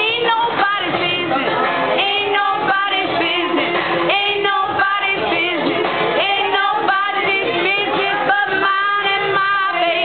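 A woman singing along with loud music, her voice carrying a melody over the accompaniment.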